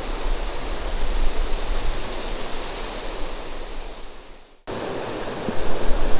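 Flooded creek water rushing steadily over a low spillway. The sound fades out about four and a half seconds in and is cut off suddenly, then a different steady rush of water takes over.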